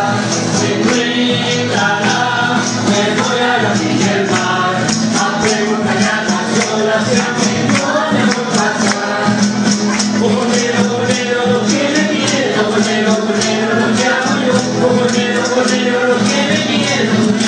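Music with a sung melody over a steady beat of shaken, rattling percussion.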